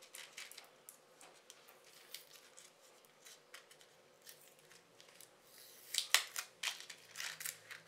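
Small clear plastic packet crinkling and crackling as fingers work it open, in scattered faint crackles with a louder run about six seconds in.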